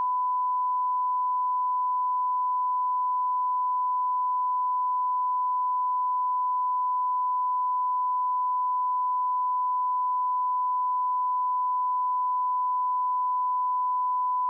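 Steady 1 kHz sine test tone, unchanging in pitch and level: the line-up reference tone that heads a broadcast spot.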